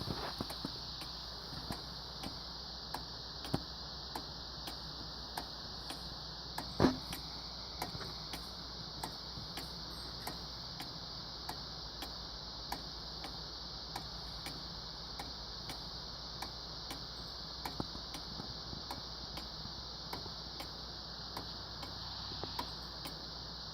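Restored 1838 eight-day clock ticking steadily, its movement running after refurbishment, with one louder knock about seven seconds in.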